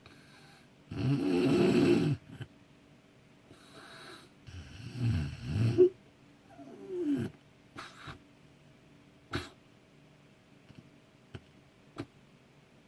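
A sleeping person snoring in varied, irregular ways: a loud snore about a second in, a softer breath, two pulsing snorts around five seconds in, and a short falling tone near seven seconds. A few sharp clicks follow.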